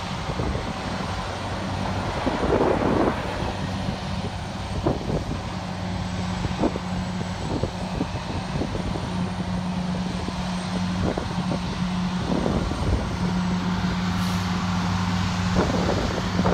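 A steady, low engine drone from heavy marine equipment, with wind buffeting the microphone in irregular gusts.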